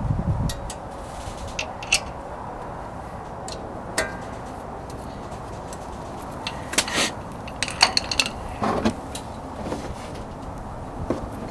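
Hand tools clinking and rattling against the metal of a wheel hub at irregular intervals, with a quick run of sharper clicks and rattles a little past the middle, over steady wind noise on the microphone.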